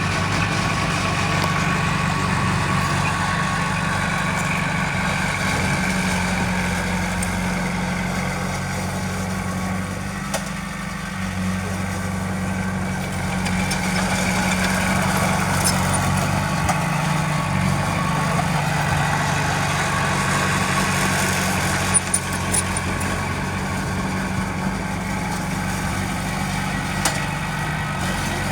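Heavy earthmoving machine's diesel engine running steadily at a low, even pitch, with a few brief sharp knocks in the second half.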